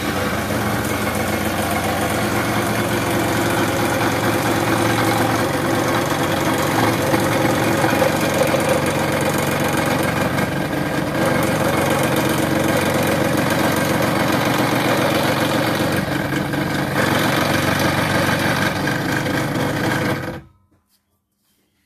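Electric scroll saw running, its blade cutting a curved piece out of a small wooden block, a loud steady mechanical buzz. The saw is switched off near the end and the sound stops abruptly.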